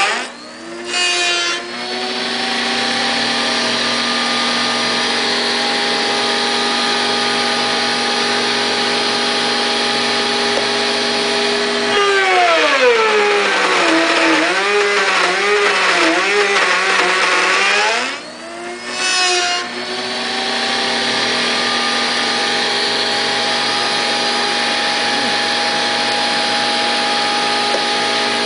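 Router running steadily in a router table with a 3/4-inch straight bit, over the steady rush of a dust collector. About halfway through, the motor's pitch drops and wavers for some six seconds as the bit is fed into hard bubinga, then comes back up. There are short breaks in the sound near the start and just after the cut.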